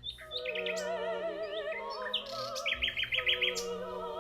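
The nightingale's song in a cartoon soundtrack: a sustained melody with a wide, wavering vibrato, with quick runs of short, high bird-like chirps over it, the chirps coming again in a burst near the end.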